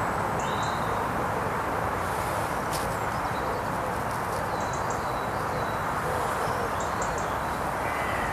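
Woodland ambience: a steady rushing hiss with small birds chirping, brief high chirps and quick clusters of high ticks recurring every second or two.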